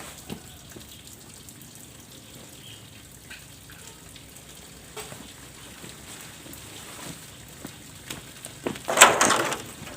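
Water spattering and dripping from a pipe joint that keeps pulling apart because the pipe is too short for the high water pressure, with small scattered knocks. About nine seconds in there is a brief loud rush of noise.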